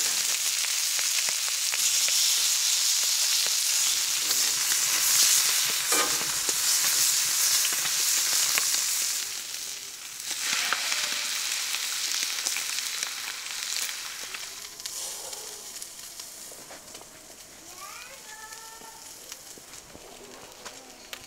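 Slices of beef tongue sizzling and crackling on a hot flat griddle over charcoal as they are turned with tongs. The sizzling is loudest for the first half, then drops and fades away.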